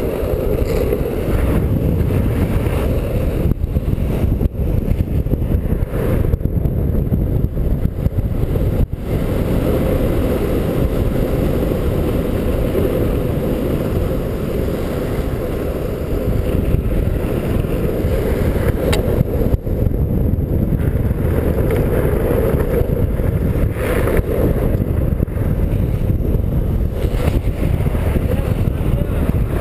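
Steady loud rush of wind buffeting a helmet-mounted camera's microphone, mixed with the rumble of skateboard wheels rolling fast on asphalt, with a few sharp clicks.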